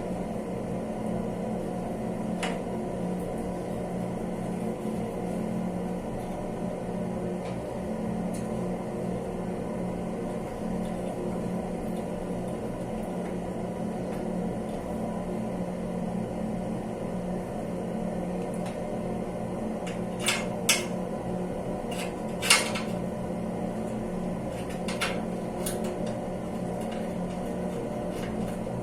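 A steady low mechanical hum. A few sharp clicks and light clinks of handled hard objects come over it, most of them clustered about two-thirds of the way through.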